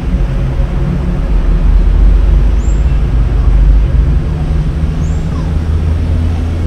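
Steady low rumble of motor traffic, with an engine hum running under it. A faint, short, high chirp sounds twice.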